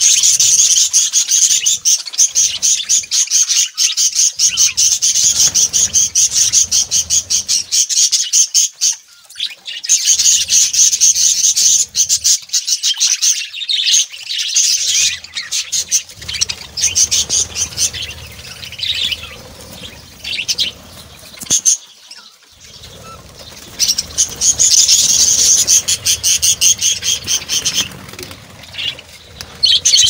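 Budgerigars chattering: fast runs of high, rapidly repeated chirps. They ease off briefly about nine seconds in and again a little past the twenty-second mark.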